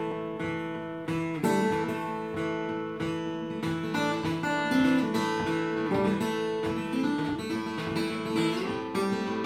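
Joshua House OM acoustic guitar with a cedar top, tuned to DADGAD, played fingerstyle: chords and picked notes ring out over sustained open strings, with a fresh chord struck every second or two.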